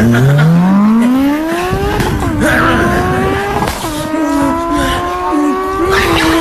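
Race car engine sound effect revving up through the gears: the pitch climbs steadily, drops at a shift about two seconds in and again near four seconds, then climbs again each time.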